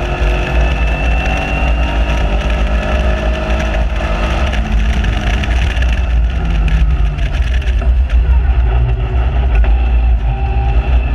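Caterham Seven 1.6 Supersport's four-cylinder engine heard from the open cockpit while lapping at speed, its note shifting with the throttle, under heavy wind buffeting on the microphone.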